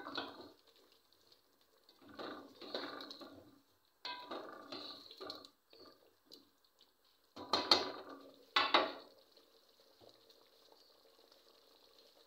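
Spoon stirring and scraping through a thick meat curry in an aluminium pressure cooker, in three bursts of about a second each, followed by two sharp knocks against the pot. Afterwards only a faint simmer of the curry remains.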